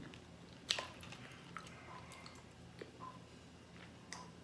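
Quiet chewing of a McDonald's apple pie, with scattered small crunches and wet mouth clicks, and another bite taken near the end.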